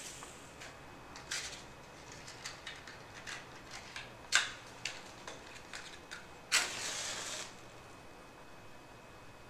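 A series of small clicks and rustles as a matchbox is handled, then a wooden match struck on the box about six and a half seconds in, flaring with a hiss that dies away within a second.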